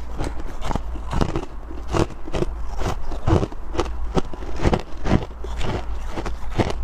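Close-up crunching and chewing of freezer frost and soft ice chunks: irregular crisp crunches, a few each second, over a steady low hum.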